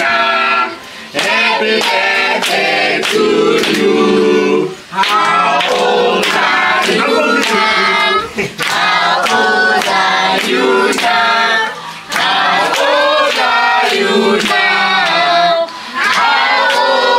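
A group of people singing together and clapping along to a steady beat, with short breaks between lines.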